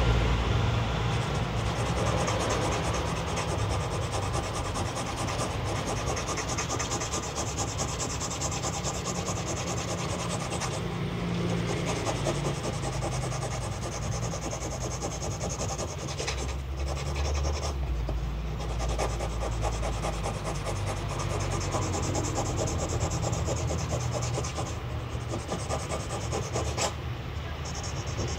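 Coarse 150-grit sandpaper on a hand sanding stick rubbed back and forth against the edge of an acrylic amulet frame: a steady scratchy sanding.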